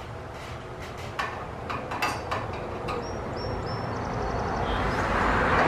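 Sharp clicks and knocks of ceiling-fan parts being handled and fitted together, several in quick succession, followed by a brief run of high thin tones and a rustling hiss that builds toward the end.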